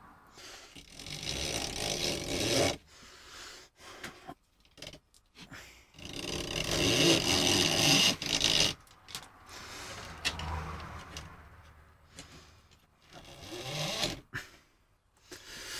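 A rubber toothed timing belt being worked by hand through a hole in the printer's acrylic X-carriage. It makes two longer stretches of rubbing and scraping, with small clicks and knocks in between.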